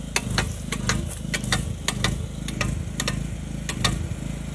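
A generator engine running steadily, with a quick, uneven series of sharp clicks over it, about three a second, that stop near the end.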